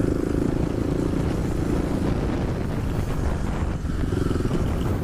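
Kawasaki KLX250 SF supermoto's single-cylinder four-stroke engine running under way on a dirt trail. The engine note eases off briefly a little past three seconds in, then picks up again.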